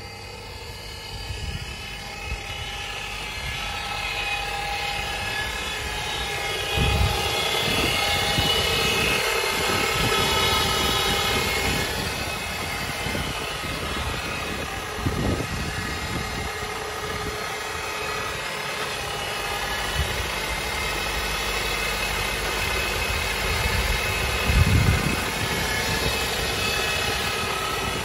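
Steady whirring whine with several held tones from a 2015 Ford Fusion Hybrid's powertrain, which the owner takes for a likely transmission problem. It grows louder a few seconds in and eases off after about twelve seconds, with a few low thumps.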